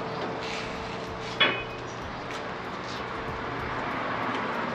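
Steady hum of the load-test rig's machinery running, with one sharp metallic clank about a second and a half in.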